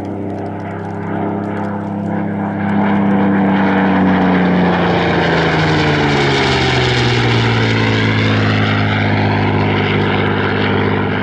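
Supermarine Spitfire PR XI's Rolls-Royce Merlin V12 engine and propeller in a low flypast: the engine note grows loud and then drops in pitch as the aircraft passes.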